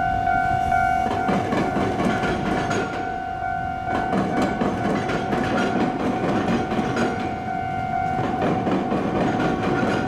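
Iyotetsu suburban electric train rolling across a level crossing, its wheels clattering in quick clicks over the rail joints of the crossing and the tram-line diamond crossing from about a second in. Over it the level crossing's warning bell rings in a steady tone.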